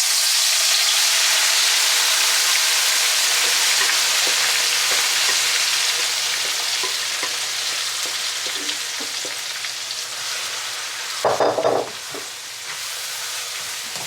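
Marinated onions sizzling as they go into warm oil in a frying pan: a steady frying hiss that eases off gradually. About eleven seconds in comes a brief louder rustling noise.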